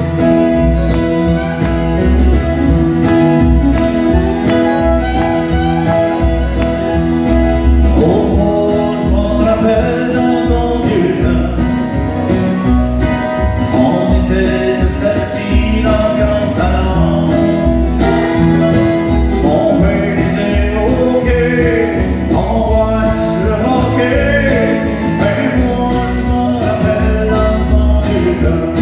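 Live country band of several acoustic guitars and a fiddle playing together, with a man singing lead into the microphone from about eight seconds in.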